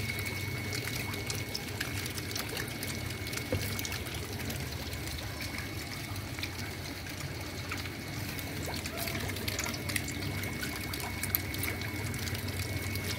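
Water pouring and trickling steadily into a recirculating eel tank, with a faint steady high-pitched tone and a few small clicks.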